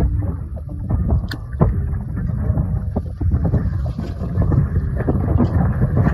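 Wind buffeting the microphone aboard a small fishing boat at sea, a loud low rumble with frequent irregular knocks.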